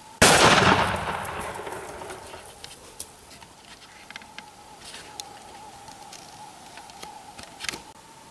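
A single gunshot a moment in, its echo fading away over about two seconds, as a Gould's turkey gobbler is shot. After it come scattered light thumps and rustles as the downed bird flops and beats its wings on the dry ground.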